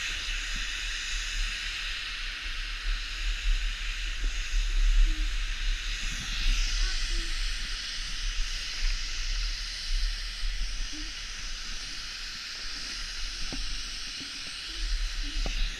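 Steady high hiss with wind rumbling and buffeting the microphone.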